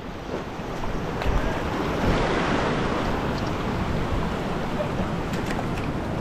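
Ocean surf washing and foaming around a rock ledge, a steady rush, with wind on the microphone.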